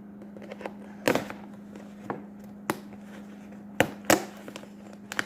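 A handful of sharp clicks and knocks at irregular intervals, from working open a package that is stapled shut, over a low steady hum.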